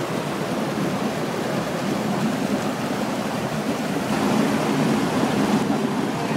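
Rocky mountain stream rushing and splashing over boulders, a steady rush of water.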